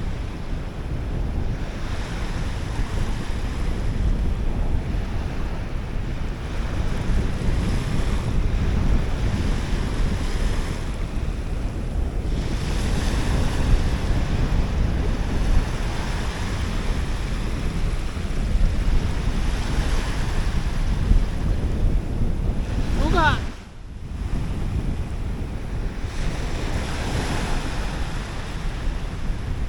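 Wind buffeting the microphone over waves washing on the shore, a steady rumbling noise. About 23 seconds in a brief sliding, whistle-like tone sounds, followed by a short sudden drop in the sound.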